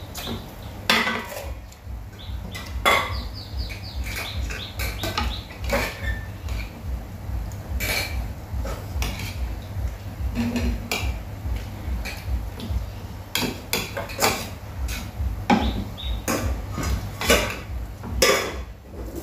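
Chopsticks and spoons clinking and scraping against ceramic bowls and plates as people eat, in irregular short knocks, over a steady low rumble.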